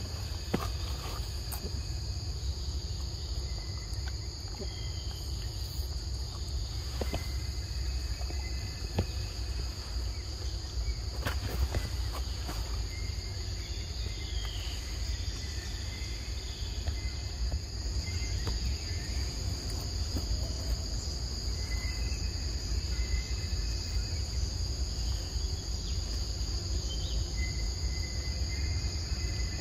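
Insects droning: a steady, high, continuous buzz, over a low rumble, with scattered short faint chirps.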